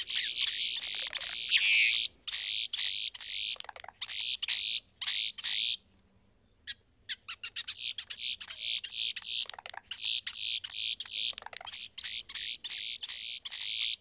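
Boat-tailed grackles calling during their courtship display: a fast run of short, high notes, about four or five a second, with a short break about six seconds in.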